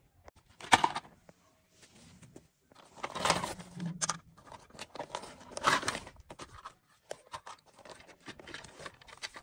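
Clear plastic bag crinkling and rustling in irregular bursts as a toy train locomotive is handled and pulled out of it, with a sharp crackle about a second in.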